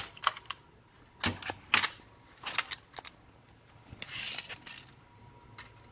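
Sharp clicks and light clacks of a small plastic multi-tool level with a built-in measuring tape being handled, then a short scraping rustle about four seconds in.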